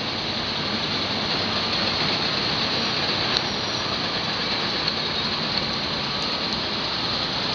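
Cat 320DL hydraulic excavator's diesel engine running steadily under load as the machine dumps its bucket and swings its boom, heard as a continuous even rumble and hiss.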